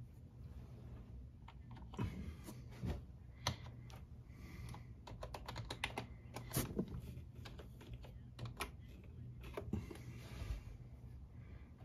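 Computer keyboard keys being pressed. There are a few separate keystrokes at first, then a quick run of taps near the middle as a password is typed, then a few more single presses.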